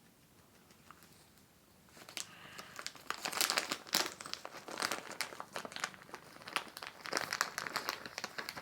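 Plastic treat packet crinkling and rustling as it is handled, starting about two seconds in and going on in irregular bursts.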